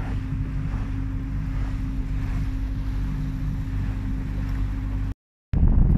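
Motorboat engine running with a steady low hum, mixed with water and wind noise. Near the end the sound drops out for a moment and returns louder.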